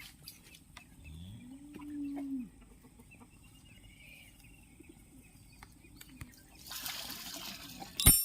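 A cow moos once about a second in: a low call that rises and then holds for about a second and a half. Near the end a short rustle leads into a sharp clank, the loudest sound.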